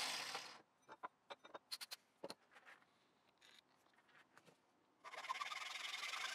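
An angle grinder cuts off, then a series of light clicks and knocks as the tool is handled. About five seconds in, a steady rubbing sound starts as work on the wooden axe handle begins.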